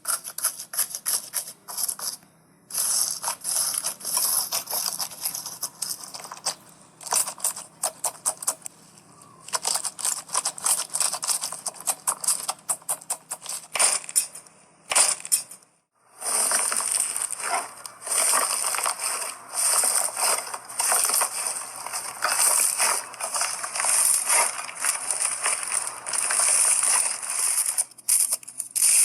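Slime being squeezed and poked by hand, giving dense runs of crackling, popping clicks. There is a short break about halfway through, after which the crackling goes on more continuously.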